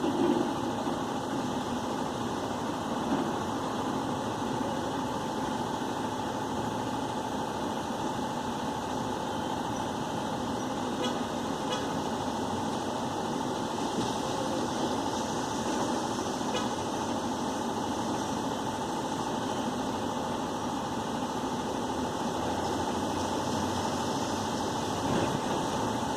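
Steady mechanical hum with one constant mid-pitched tone running through it and a few faint ticks.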